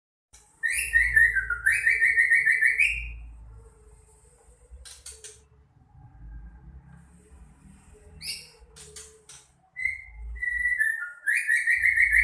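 A songbird giving rapid trilled whistles, two long trills in the first three seconds and another near the end, with a few short sharp chirps in between. A low rumble runs beneath the calls.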